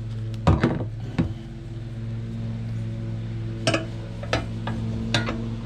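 Steel handle and frame parts of a garden dump cart knocking and clanking as they are handled and fitted together, several sharp knocks spread through the stretch, over a steady low hum.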